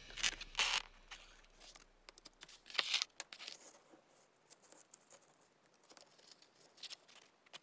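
Needle and gold metallic thread being pulled through a paper card, with the card rustling in the hands: a couple of short rustles, about half a second in and again around three seconds, then faint handling noise.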